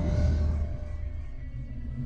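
Outro music under an end logo: a low, sustained rumbling drone with a few faint held tones above it.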